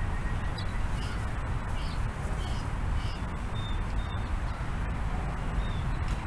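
Steady wind noise on the microphone, with short, high bird calls scattered through it.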